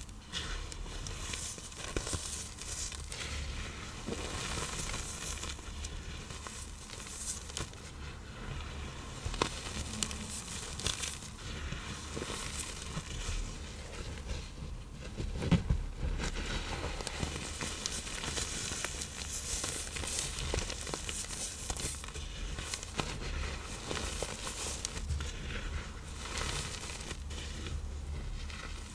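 Dusty reformed blocks of iron oxide powder and cornstarch being crushed and crumbled, a continuous crackling and crunching, with one louder knock about fifteen seconds in.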